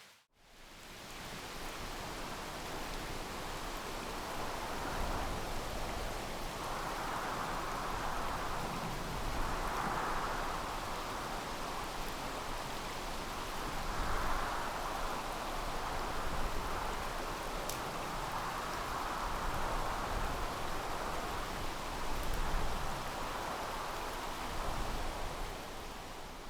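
A steady rush of water noise with slow swells and a few faint ticks.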